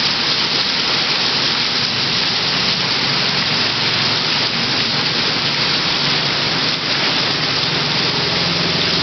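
Torrential tropical downpour: a dense, steady hiss of heavy rain pouring onto a flooded street and the roofs around it. Near the end, the low hum of a passing motorbike's engine sits under the rain.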